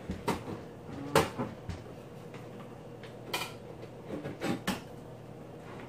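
Scattered knocks and clicks as the plastic lid of an Oster bread maker is opened and the metal bread pan inside is handled, the loudest knock about a second in.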